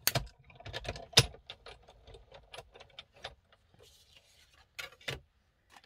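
Manual hand-cranked die-cutting machine running a die and card through its plates: two loud knocks in the first second or so, a string of quicker, fainter clicks, and two more knocks near the end.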